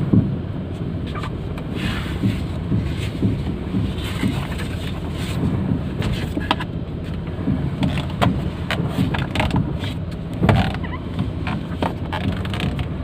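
Maruti Suzuki Alto K10 steering system knocking repeatedly at irregular intervals as the steering wheel is turned, several knocks to each turn, over a steady low rumble of the car. The owner hears it as an abnormal knock and does not know its cause.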